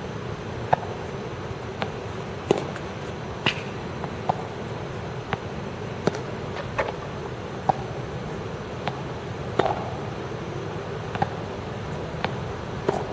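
Tennis balls being struck by rackets and bouncing on the court during a rally drill: sharp pops about once a second, some louder than others, over a steady background hum.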